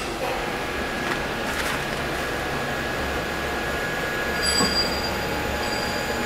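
Grinding wheel of an Okuma GA26T cylindrical grinder spinning up after start, a steady whir and rumble with a few high steady tones. A sharp noise comes right at the start, and more high tones join about four and a half seconds in as the wheel comes up toward speed.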